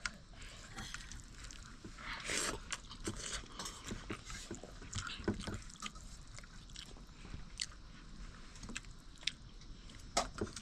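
Someone eating chicken curry and rice: irregular soft, wet chewing and squishing with scattered small clicks.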